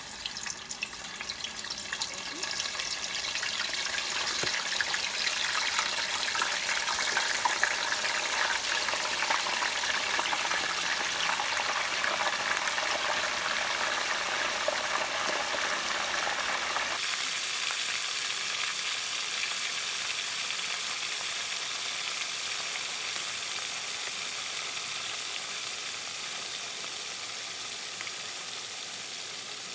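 Chicken wings deep-frying in a large pot of hot grease: a dense crackling sizzle that grows over the first few seconds as wings are dropped in one after another, with a few sharper pops, then slowly eases.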